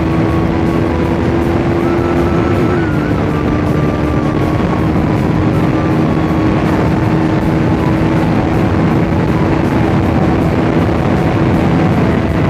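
KTM RC 390's single-cylinder engine running at high revs at high road speed, a steady drone under loud rushing wind, with a brief dip in pitch about two and a half seconds in.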